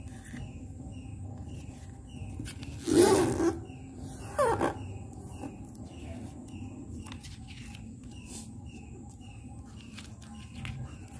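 A small bird chirping steadily in the background, about two short, high chirps a second, with two louder, sudden sounds about three and four and a half seconds in.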